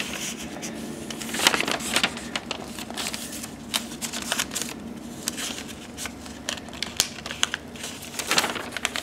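Pages of a glossy paper sale flyer being turned and handled: irregular rustling and crinkling of paper, with louder page flips about a second and a half in and near the end.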